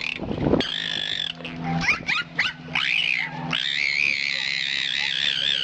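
Dolphin whistles: long, wavering, high whistles, with a run of quick rising-and-falling calls partway through. A brief low, rough burst comes about a quarter of a second in.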